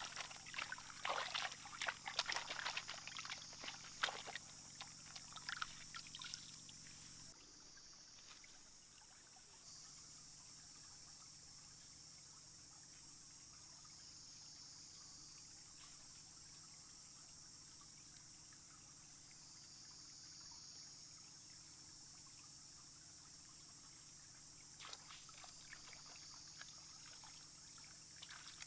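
Hands splashing and rubbing in a shallow stream while washing lemongrass: a quick run of splashes and sloshing water for the first several seconds. Then the stream trickles steadily, with a few more splashes near the end as chillies are rinsed.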